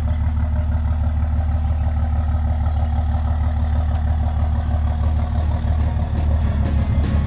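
Truck engine idling steadily with a low, even hum.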